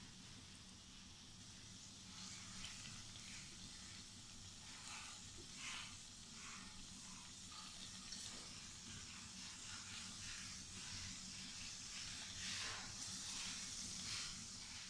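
Besan pakoras deep-frying in hot oil in a steel kadhai: a faint, steady sizzle with small crackles, growing a little louder towards the end as the pan fills with more pakoras.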